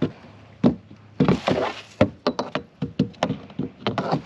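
A quick, irregular run of sharp knocks and clatters on a plastic kayak, about a dozen over a few seconds.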